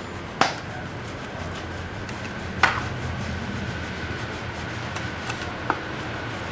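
Stiff-bristle hand scrub brush scrubbing the degreaser-wet, greasy metal lid of a grease pail, a steady rasping with three sharper knocks. The brush is agitating the degreaser to work it into the grease.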